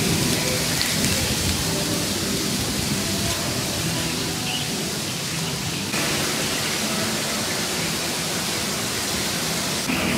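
Strong wind buffeting the microphone: a steady, rushing rumble with the rustle of wind-blown grass and trees, changing abruptly about six seconds in.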